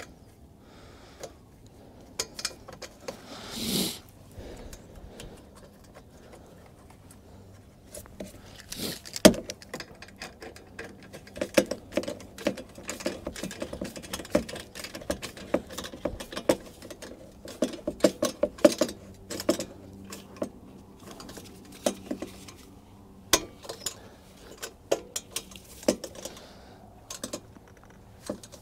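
Hand ratchet clicking in runs of quick clicks, with metallic clinks and knocks, as a fastener is turned at the base of the generator's carburetor. The busiest clicking falls in the middle stretch.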